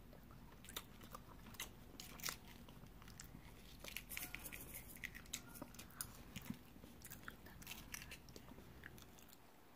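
Quiet chewing of balut, then a metal spoon digging into the opened duck egg, clicking and scraping against the inside of the shell in a run of small sharp ticks.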